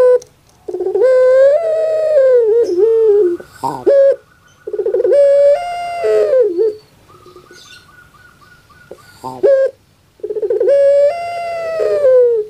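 Female puter pelung dove (domestic collared dove) cooing in its rhythmic 'crying' call: three long drawn-out coos, each held and then falling at the end, with short sharp notes between them.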